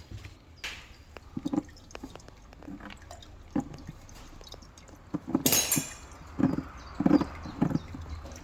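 Metal parts and tools clinking and knocking, with oil dripping and spilling into a catch bucket. About five and a half seconds in comes a short loud rushing noise, followed by three heavier knocks.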